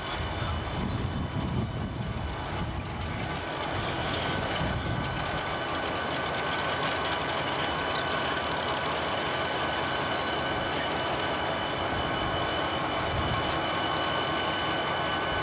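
Diesel freight locomotives rolling slowly past at close range, their engines running with a steady rumble.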